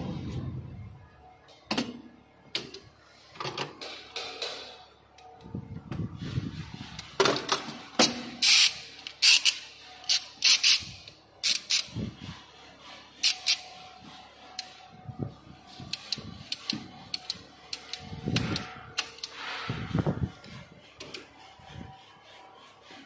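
Ratchet cable cutter being worked on insulated copper wires: irregular sharp clicks and snaps from its ratchet and jaws, with duller handling knocks and rustling between them.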